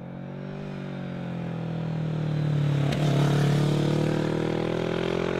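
Kawasaki Ninja 650's parallel-twin engine as the bike rides up toward and past, growing louder as it nears. Just before three seconds in the note breaks briefly for a gear change, then climbs in pitch as the bike accelerates away.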